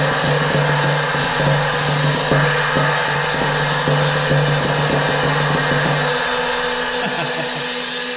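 23-inch Red Cymbals Crazy Flat China cymbal rolled with mallets, building a loud, dense shimmering wash. The roll stops about six seconds in and the cymbal rings on.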